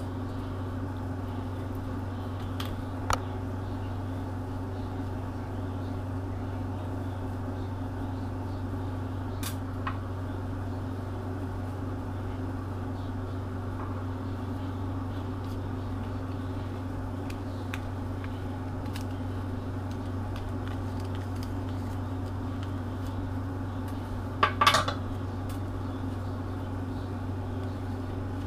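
Light clinks and taps of metal fishing tackle and crimping pliers being handled on a glass tabletop: a few single clicks, with a louder cluster of clinks near the end. A steady low hum sits under it throughout.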